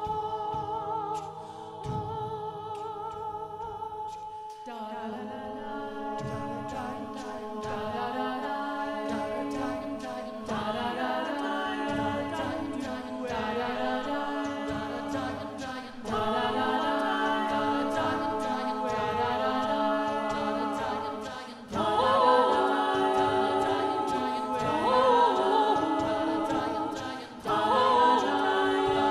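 Mixed-voice a cappella ensemble singing in divided SATB parts into microphones. Held chords at first, then a pulsing low part comes in about five seconds in, and the singing grows louder in steps later on.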